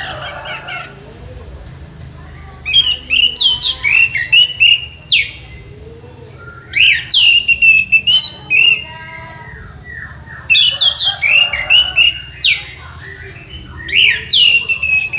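Orange-headed thrush (anis merah) singing in four loud bursts of rapid, sweeping whistled phrases, each about two seconds long, with short pauses between them. A faint steady low hum runs underneath.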